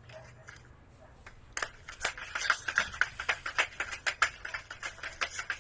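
A rapid, irregular run of sharp clicks or taps, several a second, starting about a second and a half in and stopping near the end.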